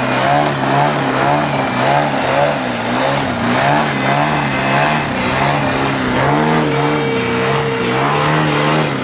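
Large gasoline-engined RC aerobatic plane hovering nose-up. Its engine and propeller run loud, with the pitch rising and falling about twice a second as the throttle is worked to hold the hover.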